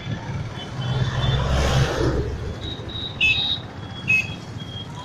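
Street traffic: a motor vehicle passes, its engine rumble and tyre hiss swelling to a peak about halfway through and then fading. A few short high-pitched beeps sound about three and four seconds in.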